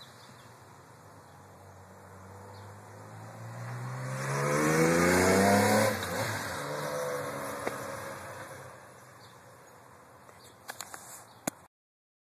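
Honda CBX six-cylinder motorcycle engine accelerating hard, its pitch climbing and growing louder, then dropping off and fading away as the bike rides off.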